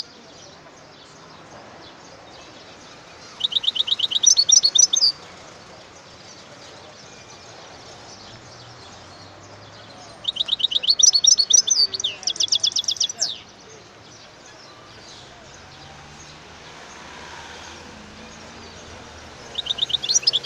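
European goldfinch singing: bursts of rapid, high repeated notes and trills, each lasting about two to three seconds, come about 3 s in, about 10 s in and again near the end, with a faint steady hiss in the pauses between.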